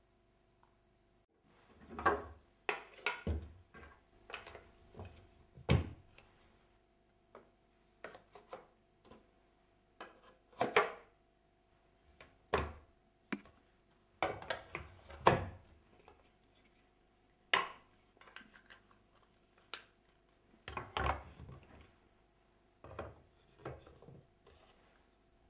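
Wooden parts of a painted wooden baby walker handled and fitted together by hand: irregular knocks, clunks, taps and short scrapes of wood on wood as pegs, panels and wheels go into place.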